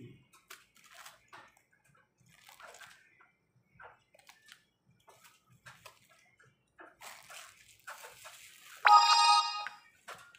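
Scattered clicks, taps and rustles of plastic parts being handled as a small tripod and an LED party light are set up. About nine seconds in, a loud, steady, high multi-tone sound starts suddenly and lasts about a second.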